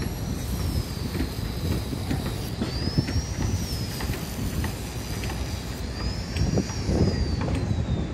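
Wind buffeting the microphone as a low, gusty rumble, with a thin high whistle that rises and falls back three times, about three seconds apart.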